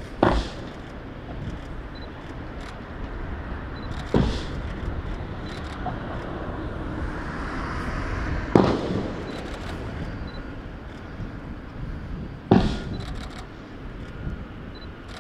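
Four sharp bangs about four seconds apart, each with a short echo, from pyrotechnic charges set off in a simulated aircraft fire, over a steady outdoor rumble.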